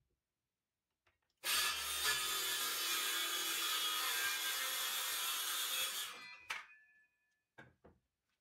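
Makita cordless circular saw starting up and cutting through a wooden board for about five seconds, then the blade spinning down after the trigger is released. Two light knocks follow near the end.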